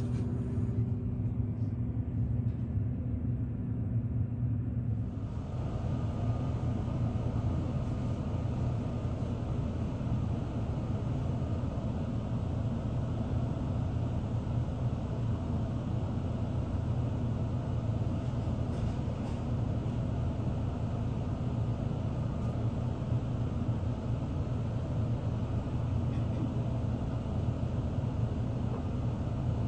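Steady low hum of an electric express train standing at a station with its on-board equipment running. About five seconds in, the sound opens out with more hiss over the hum.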